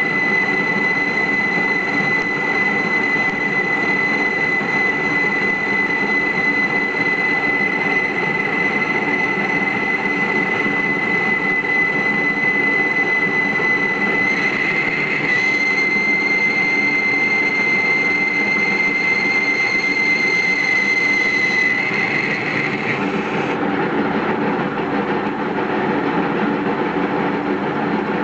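Metal lathe boring out the bore of a metal hub for a bearing: a steady high-pitched squeal from the cutting tool over the lathe's running noise. The squeal stops about 23 seconds in while the lathe keeps running.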